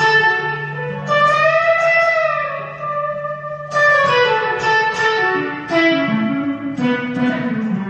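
Electric guitar played solo as a slow melodic lead line. About a second in, a sustained note is bent up and let back down, and several picked notes follow that step downward near the end.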